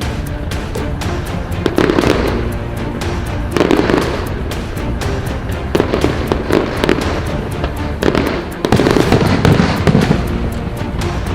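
Aerial fireworks going off: repeated booms every couple of seconds over a continuous crackle of many small pops, with music playing underneath.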